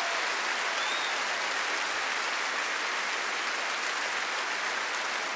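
Large arena audience applauding steadily, a dense even wash of clapping.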